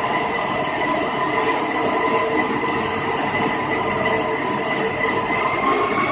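Concrete floor grinding machine running, a steady motor whine over a rough grinding noise, the whine rising slightly in pitch near the end.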